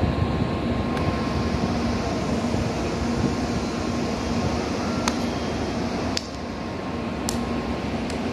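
Steady whirring hum of a stopped shinkansen train's air-conditioning and cooling equipment, with a few light clicks. The hum drops a little about six seconds in.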